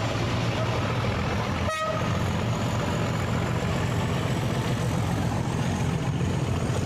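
Vehicle engine running with a steady rumble, with one short horn toot just under two seconds in.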